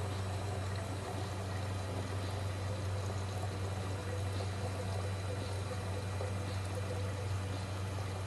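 Coffee maker brewing: water trickling and gurgling steadily over a constant low hum.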